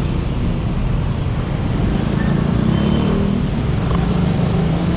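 Honda Click 125i scooter's single-cylinder engine running at low speed, a steady low hum with road and traffic noise around it.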